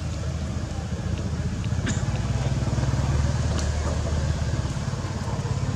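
A motor engine running steadily, a low drone that grows a little louder in the middle.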